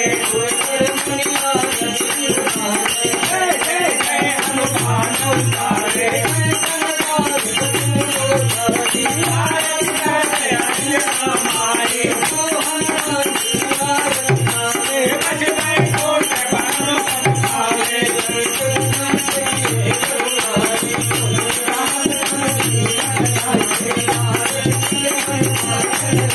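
Devotional bhajan played live: a man singing over a harmonium melody, with a dholak drum giving a repeating pattern of low beats and hand-held percussion jingling on every beat.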